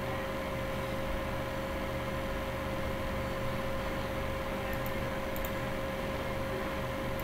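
Steady background hiss and low hum with a constant mid-pitched tone, the electrical and room noise of a computer recording setup. A couple of faint clicks come about five seconds in.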